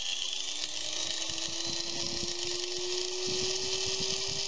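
Harbor Freight angle grinder's electric motor running after being switched on, its whine rising slowly in pitch as it comes up to speed, with irregular low thuds underneath.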